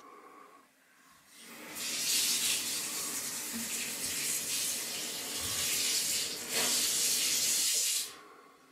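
Steady rush of running water, like a tap running, starting about two seconds in and cutting off abruptly near the end.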